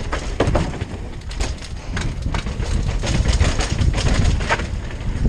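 Mountain bike descending fast over cobblestones, its frame and chain rattling, with irregular clacks and knocks from the bumps. Heavy wind buffeting on the bike-mounted camera's microphone.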